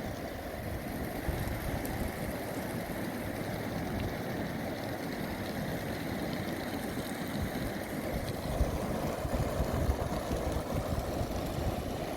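Steady low rushing of a fast mountain river, the Kunhar, as an even rumble without pauses.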